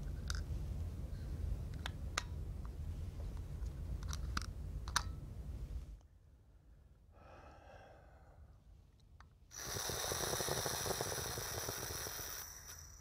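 Small plastic clicks of a HandiHaler inhaler being opened and handled, the lid and mouthpiece snapping and the capsule chamber being worked, several times in the first five seconds. After a faint breath out, a strong inhalation through the HandiHaler about three seconds long carries a hissing rush with a high whistling buzz: the capsule rattling and vibrating in its chamber as the powder is drawn in.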